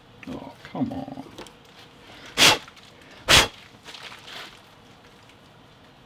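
Lock hardware being forced into a door: a short wavering creak, then two loud knocks about a second apart as the parts are pushed and tapped into place, and two fainter knocks after.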